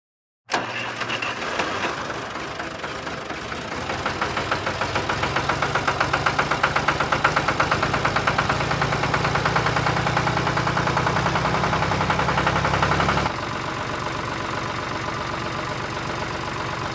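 Tractor engine running with a steady knocking beat. It starts about half a second in, grows louder a few seconds later and drops back suddenly to a quieter run near the end.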